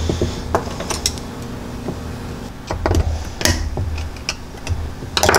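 Irregular clicks, knocks and low thuds of a metal motorcycle triple clamp and ignition lock being handled and shifted about on a workbench.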